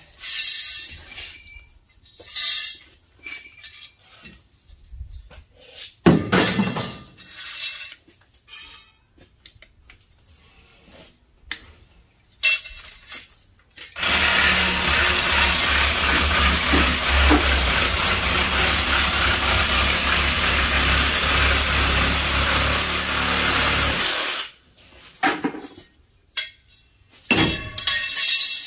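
Sheet-metal brackets and panels from a scrap condenser coil clanking and scraping as they are worked loose and dropped on concrete. About halfway through, a power tool starts and runs steadily for about ten seconds, then stops abruptly, followed by a few more metal clanks.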